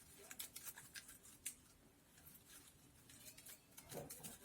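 Faint scattered clicks and rustles of palm fronds being handled and worked into the woven figure by hand.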